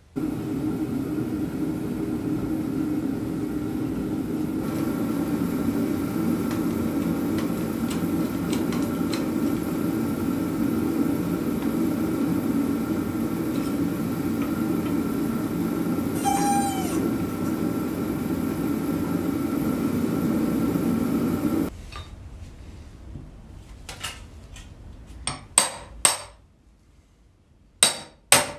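A steady low mechanical drone runs while a control arm bushing is pressed in, with a brief squeak partway through, then stops abruptly. Near the end come several sharp metal knocks: hammer strikes on a steel lower control arm as a new bushing is driven in.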